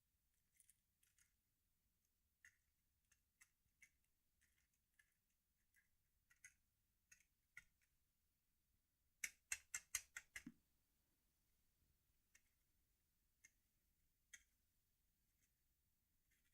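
Near silence with faint, scattered ticks, and a quick run of about seven sharp clicks a little past the middle.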